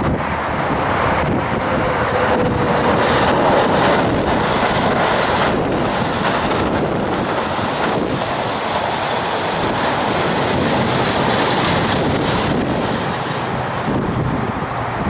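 Electric suburban train (EMU) passing at speed, a steady rush of wheels running on the rails, with wind buffeting the microphone throughout.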